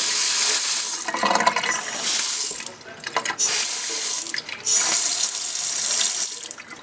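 Delta kitchen sink faucet, just fitted with new seats, running water into the sink under full supply pressure as it is tested for leaks. The flow cuts off and restarts a couple of times and stops near the end.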